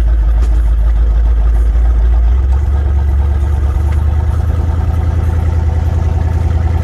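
Twin-turbo Ford F-100 pickup's engine, heard from inside the cab while under way. Its deep, steady firing note steps up in pitch about two and a half seconds in as the truck accelerates.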